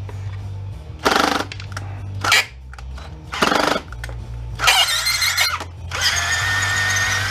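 Power drill-driver working a stuck screw out of a jump-starter's plastic case, run in several short bursts and then held in a steadier high whine near the end.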